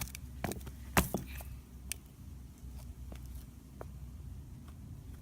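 Sharp knocks of an iPhone 6s Plus being struck to break it, the loudest about a second in, followed by a few lighter clicks.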